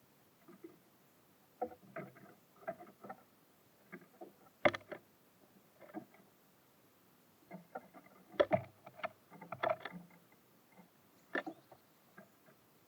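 Irregular taps and knocks of small birds pecking at seed and hopping about on a bird feeder, loudest in a cluster about halfway through.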